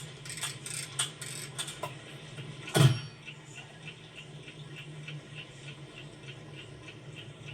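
Several sharp clicks and knocks, then a loud thud about three seconds in. After it comes a steady, faint ticking of about three ticks a second over a low hum.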